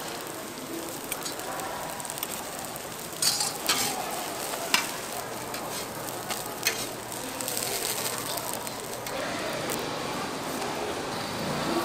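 Korean jeon (batter pancakes) frying in oil on a flat griddle, sizzling steadily, with a few sharp clicks about three to five seconds in.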